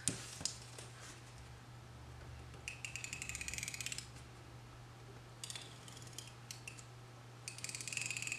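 Handheld roller tape dispenser pressed and run across a planner page in three strokes, each a fast, fine ratcheting click of the tape reel turning. The strokes come about three, five and seven and a half seconds in.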